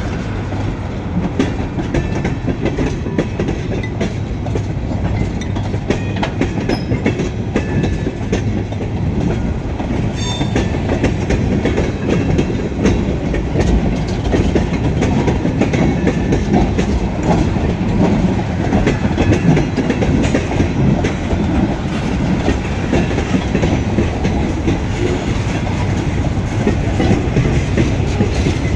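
Freight train of tank cars and boxcars rolling past: a steady rumble of steel wheels on rail, with clicking as the wheels cross the rail joints.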